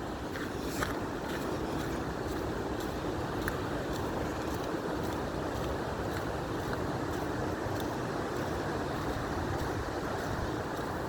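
Steady rush of river water tumbling over rocky cascades, with a few faint scattered ticks.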